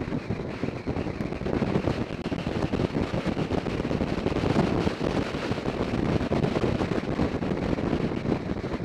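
Wind rushing and buffeting over the microphone of a camera mounted on a sport motorcycle at road speed, with the bike's engine running underneath.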